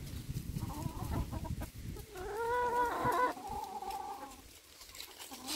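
Free-range chickens clucking, with short calls about a second in and a louder drawn-out call about two seconds in that holds for roughly two seconds and steps down in pitch partway through.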